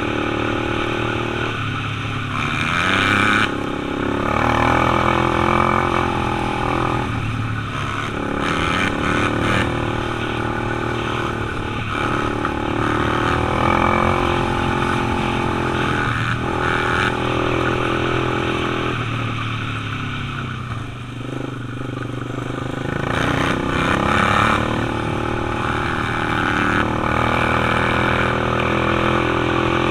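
ATV engine running under throttle, its pitch climbing and then dropping several times as it shifts up, with a brief ease-off of the throttle partway through.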